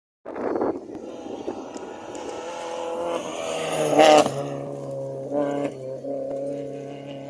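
Rally car engine at high revs as a Ford Fiesta rally hatchback approaches and passes close by, loudest as it goes past about four seconds in, the engine note then carrying on steadily.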